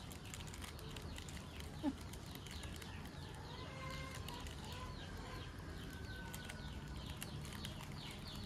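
Birds chirping in quick, short falling notes, with one brief louder call about two seconds in, over a steady low hum.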